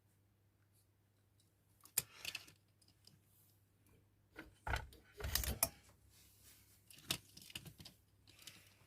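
Small tools and parts being handled on a workbench: a sharp click about two seconds in, a cluster of clatter and rattles in the middle, and more clicks and rattles near the end.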